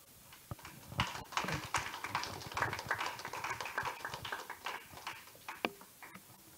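Rustling and clicking handling noise close to a handheld microphone, starting about a second in and lasting about four seconds, with one sharper click near the end.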